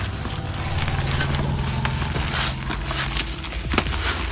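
Plastic courier bag and bubble wrap crinkling and rustling as hands pull a parcel open, with a steady low hum underneath that stops about three seconds in.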